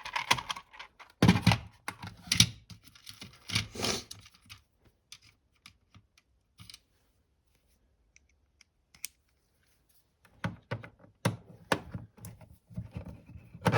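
Clicks and light clattering of small plastic and metal parts being handled while a transistor radio is taken apart. They come in a busy first stretch, thin out to scattered ticks, then pick up again near the end.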